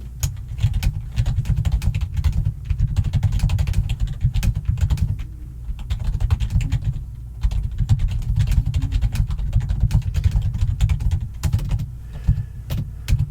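Fast typing on a computer keyboard: dense runs of key clicks, each with a heavy low thud, pausing briefly about seven seconds in and again near the end.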